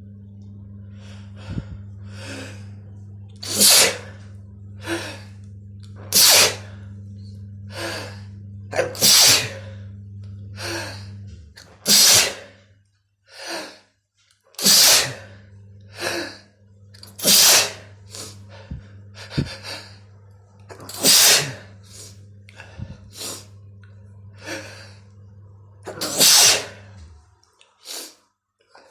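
A person in a sneezing fit: about eight loud sneezes, one every two to four seconds, with gasping in-breaths and smaller sneezes between them.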